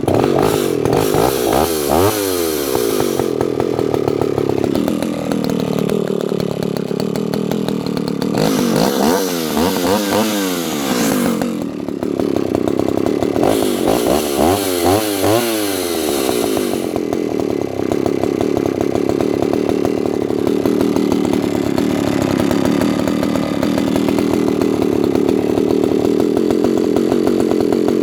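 Alpina 70S vintage 70 cc Italian two-stroke chainsaw running at high revs. The throttle is blipped rapidly up and down in three spells, about a second in, around nine seconds and around fourteen seconds, between long stretches held at steady high speed.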